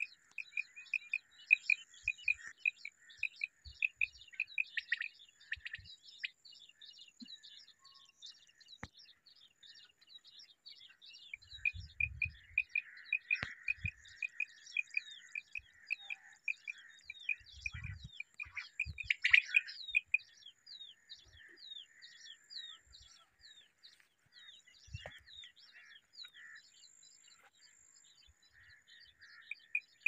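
Quail calling: a fast run of short, evenly spaced high chirps, with quick falling notes crowding in around the middle. A few soft low thuds sound under the calls midway.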